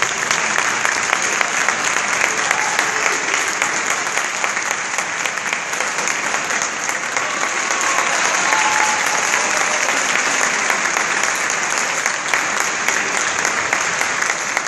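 Large audience applauding steadily, many hands clapping without a break.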